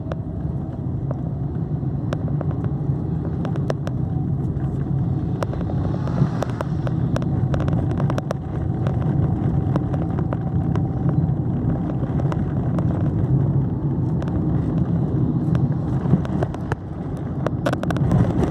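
Ride inside a moving road vehicle: a steady low engine and road rumble, with many short sharp rattles and clicks throughout.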